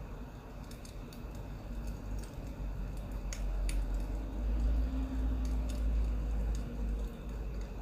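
Sparse, sharp crackles and pops of burning firewood over a low rumble that swells in the middle.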